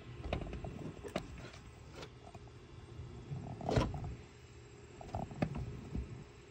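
Irregular clicks and knocks of a metal socket and wrench being handled and fitted, the loudest about four seconds in.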